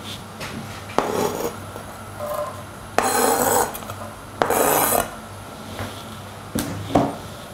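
Chopped onion being scraped off a board into a frying pan of oil: several short noisy scrapes, each under a second and a second or two apart, with a couple of light knocks near the end.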